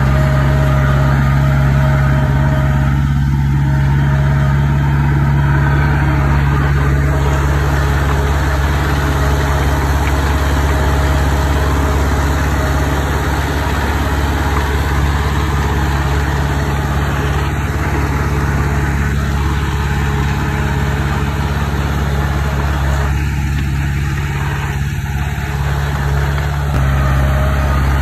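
Heavy construction machine's diesel engine running steadily at an even speed, a deep, constant drone.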